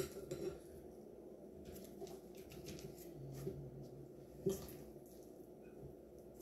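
Faint scrapes and soft taps of spoons in thick oat cookie dough: a wooden spoon stirring in a glass bowl and a spoon scooping dough onto a parchment-lined baking tray. There is a sharper tap about four and a half seconds in.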